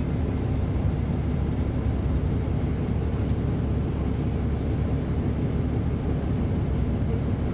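Inside a 2009 NABI 40-SFW transit bus, heard from the rear seats: its Caterpillar C13 ACERT diesel engine running steadily with a low drone, and a faint steady high whine above it.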